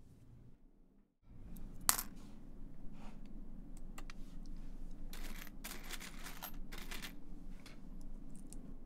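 Loose coins clinking and rattling as they are handled in a tray, with scattered sharp clicks; a single loud click about two seconds in, and a longer spell of coin rattling in the second half.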